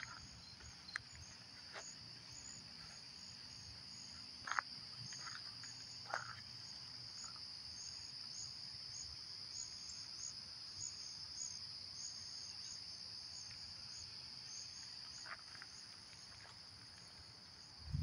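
Steady high-pitched chorus of insects on a summer evening, with a faint pulsing note above the main drone and a few scattered chirps.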